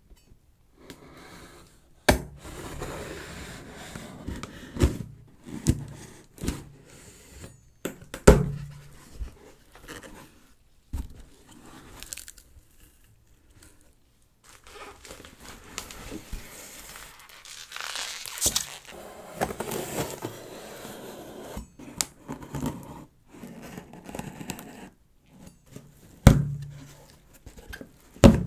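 Product packaging handled close to the microphone: wrapping crinkling and tearing, with scrapes and several sharp knocks as the box and its parts are set down, and a quieter lull about halfway through.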